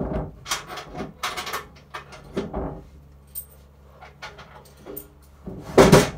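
Coins jingling and clattering as they are fed into a kiddie ride's coin mechanism: a string of irregular metallic clicks and rattles, the loudest clatter near the end, over a faint low hum from the ride.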